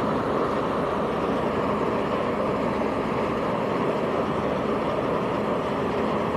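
Combine harvester running steadily while harvesting rice, an even, continuous machine noise with no change in pace.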